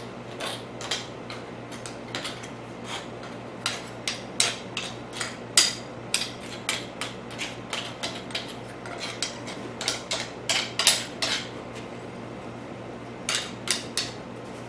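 A small metal hand tool digging through dry, broken casting sand, scraping and clinking irregularly against a freshly cast aluminum part. The clinks come thick through the middle, stop briefly, and return as a few sharp taps near the end.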